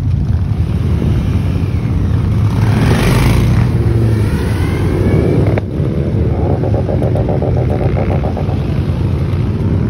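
Motorcycle engines running at low speed with the rumble of cars alongside, one bike revving up a little a few seconds in. The sound changes abruptly about halfway through, then a steady pulsing engine note carries on.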